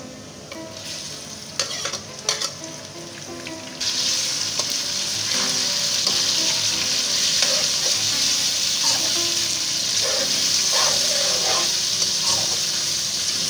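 Raw chicken pieces frying in hot oil and garlic in an aluminium wok, stirred with a metal slotted spatula. A softer sizzle with a few sharp clicks gives way about four seconds in to a loud, steady sizzle, with the spatula scraping the pan.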